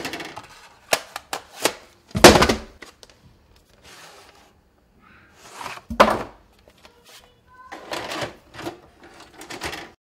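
Plastic VHS video cassettes being handled, giving a string of clicks and clunks. Two loud knocks come about two seconds in and about six seconds in.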